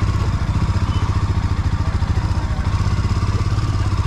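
Motorcycle engine running at low speed, with a steady rapid exhaust beat, as the bike is ridden slowly up a dirt track.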